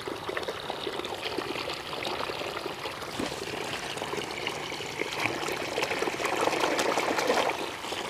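A stream of water pouring and trickling into a plastic basin of soapy water, with small clicks and splashes as plastic toys are handled and rinsed in it.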